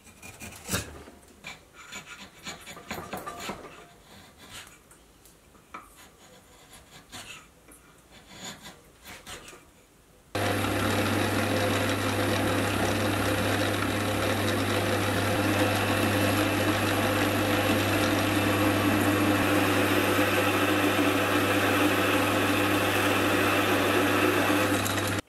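A freshly sharpened chisel pares a piece of wood held in a vise, with quiet scraping cuts and small clicks. About ten seconds in, a metal lathe takes over, turning a metal bar with a sharpened high-speed steel lathe tool: a loud, steady machine hum with the hiss of the cut.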